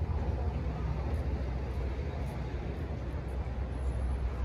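Steady low rumble of a busy parking lot and fuel station, with vehicles running and no single distinct event.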